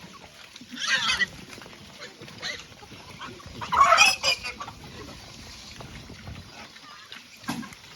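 Pigs squealing in short bursts, about three or four squeals, the loudest about four seconds in.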